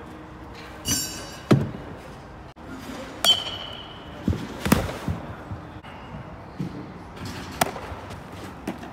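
A run of sharp, irregular knocks and pops, about eight in all, as baseballs smack into a catcher's mitt and strike his gear during catching drills; a couple carry a brief metallic clink.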